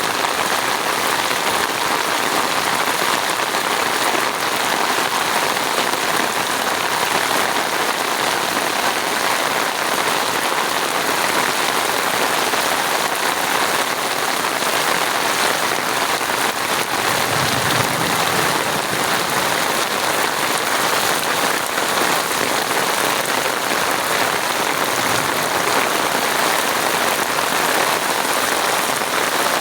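Steady rain falling and pattering on surfaces, an even hiss of many drops with no letup.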